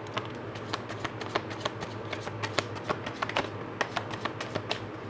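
Tarot cards being shuffled by hand: a continuous run of quick, irregular card flicks and clicks, over a faint steady low hum.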